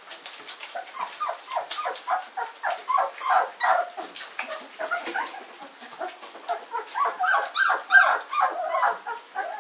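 Newborn German shorthaired pointer puppies squeaking and whimpering while they nurse, a busy overlapping run of short high squeaks that starts about a second in.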